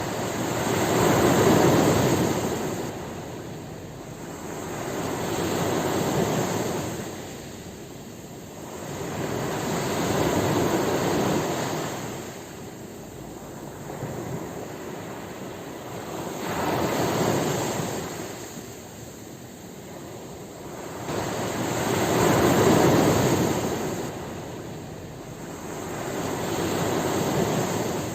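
Ocean surf: waves washing in and drawing back in slow swells, about six in all, each rising and fading over four to five seconds.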